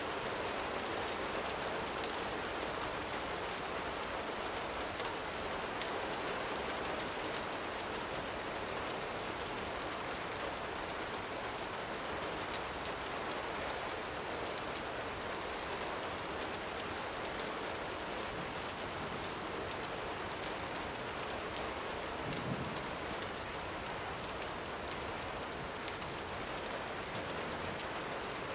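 Gentle rain falling steadily, with the sharp crackles of a campfire scattered throughout.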